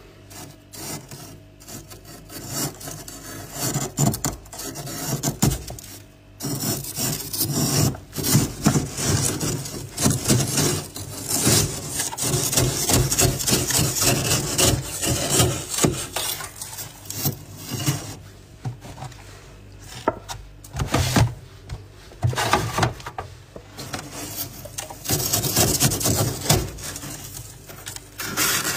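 Thick built-up freezer frost being scraped off the shelves with a hand tool: an irregular run of scraping strokes, some short and some drawn out.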